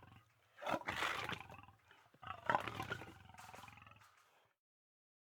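Lion roaring: two loud, deep calls about a second and a half apart, each starting strong and fading away, then the sound cuts off to silence.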